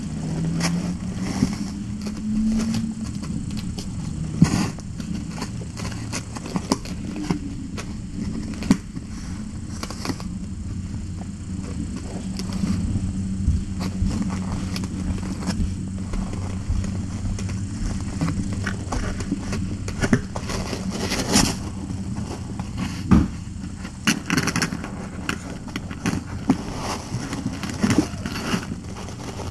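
Kittens moving and playing right up against the camera microphone: frequent soft clicks, taps and rustles over a steady low rumble.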